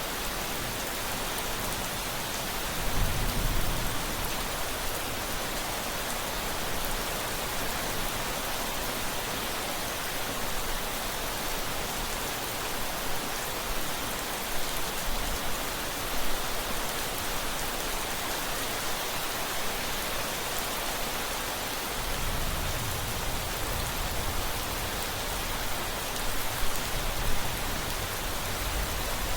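Steady rain, with a low rumble of distant thunder about three seconds in and again through the last several seconds.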